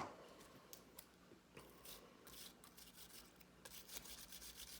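Faint rubbing and scratching strokes as pistol parts are handled and scrubbed during cleaning, turning into a quick, even run of strokes near the end.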